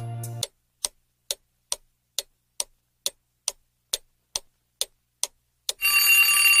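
Clock-ticking countdown sound effect, a little over two even ticks a second, timing the answer period; near the end an alarm-like ring sounds as the time runs out.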